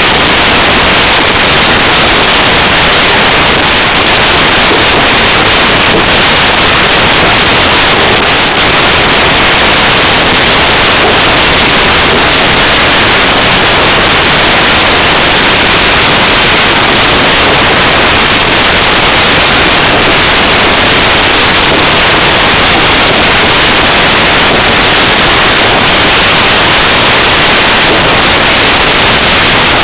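Taiko drum ensemble playing at full force, so loud that the recording is overloaded and the separate strokes blur into a steady, harsh wash of distorted noise.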